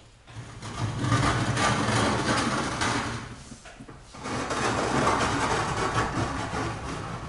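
Vertically sliding lecture-hall blackboard panels being pushed along their runners: two long sliding runs, the first starting about a second in and the second about four and a half seconds in, each lasting around two and a half seconds.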